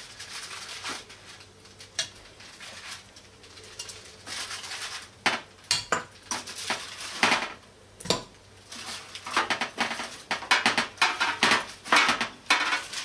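Metal kitchen tongs clicking and clinking as roasted veal bones and onion are lifted off a foil-lined baking tray and dropped into a stainless steel pot. Aluminium foil crinkles alongside. Scattered sharp clicks give way to busier clattering and rustling in the last few seconds.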